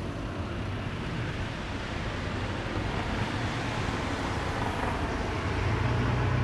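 Steady low rumble of distant engine noise, slowly growing louder.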